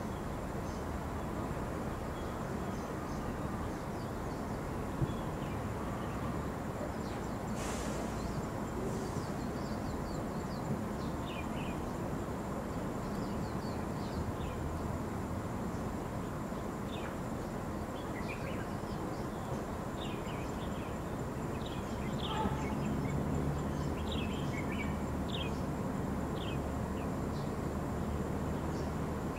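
Outdoor ambience: a steady low rumble and hiss with short, high bird chirps scattered through, coming more often in the second half.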